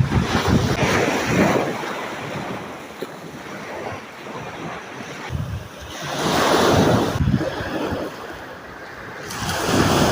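Sea waves washing in, swelling and fading three times, with wind buffeting the microphone.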